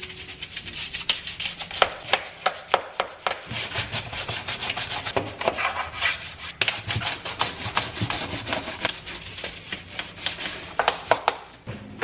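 Handled dish brush scrubbing a wet ceramic-tile window ledge in quick, uneven back-and-forth strokes.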